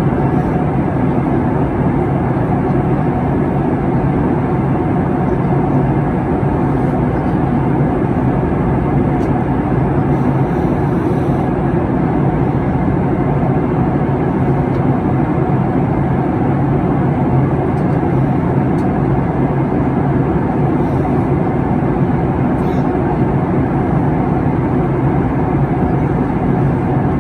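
Steady airliner cabin noise in flight: engine and airflow noise heard from inside the passenger cabin, an even rushing with a low hum underneath.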